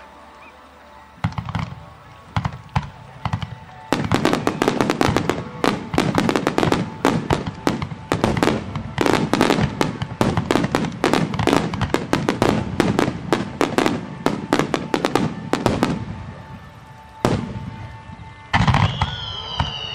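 Fireworks display: a few scattered bangs, then a rapid barrage of aerial shell bursts for about twelve seconds that thins out. Near the end come more bangs and a high tone gliding slowly down.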